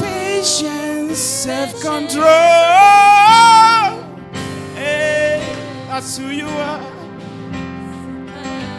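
Worship music: a singing voice with vibrato over sustained instrumental backing. About two seconds in, the voice climbs to a loud held note, the loudest part, which ends near the four-second mark.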